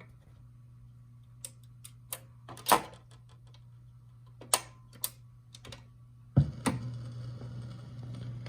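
Telefunken 504 record changer working through its cycle: a series of sharp mechanical clicks over a steady low hum. About six seconds in comes a loud thump as the tonearm sets down, followed by louder hum and a fine crackle of surface noise through the stereo.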